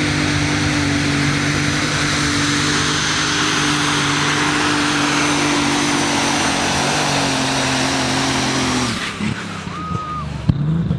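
Superstock pulling tractor's turbocharged diesel engine running flat out at steady high revs, then cutting off suddenly about nine seconds in. A short high tone follows.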